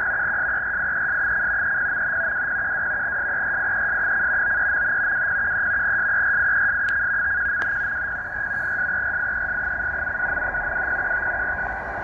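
Tecsun H-501X shortwave receiver playing a NAVTEX marine weather data broadcast on 8415 kHz in upper sideband: a steady, high data tone over shortwave static hiss. The signal is coming in well enough to be decoded as text.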